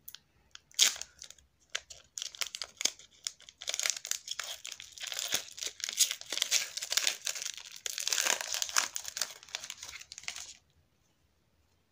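Foil wrapper of a Pokémon trading-card booster pack being handled and torn open: scattered crackles at first, then a dense crinkling from about four seconds in as the pack is ripped and the cards are pulled out. It stops suddenly about a second before the end.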